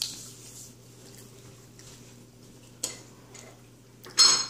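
Cutlery against a ceramic plate: a small click about three seconds in, then a louder, brief clink and scrape with a high ring near the end, over a faint steady low hum.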